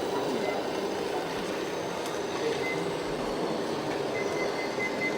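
Steady hum, with a high-pitched reversing beeper of a radio-controlled model truck starting about four seconds in and beeping rapidly.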